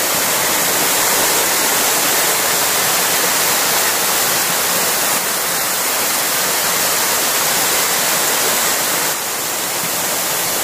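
Waterfall water rushing and splashing down a rocky cascade close to the microphone: a loud, steady rush.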